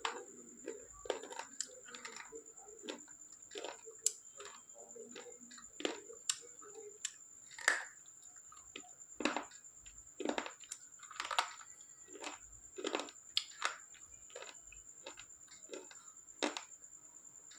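Slate pencil being bitten and chewed: a series of sharp, crisp cracks and crunches at an irregular pace, about one or two a second.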